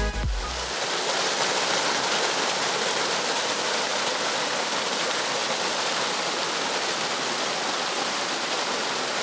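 Steady rush of a mountain stream's waterfall, white water cascading down between rocks in an even, unbroken hiss.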